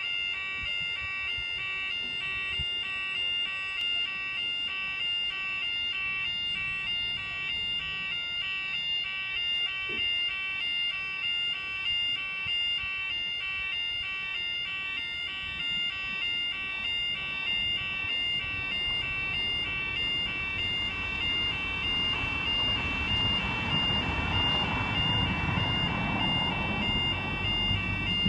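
Level crossing's electronic warning alarm sounding continuously in a steady repeating pattern. From about three-quarters of the way through, the rumble of an approaching Class 170 Turbostar diesel multiple unit grows underneath it.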